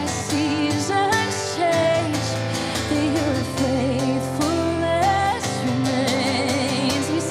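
A woman singing a worship song with vibrato over a strummed acoustic guitar, with steady low notes underneath.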